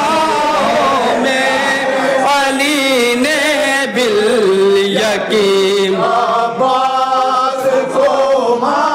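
Men's voices chanting an Urdu manqabat, a devotional poem in praise of Bibi Zainab, a lead reciter at the microphone with a group of reciters. The chant moves in phrases of long held, wavering notes.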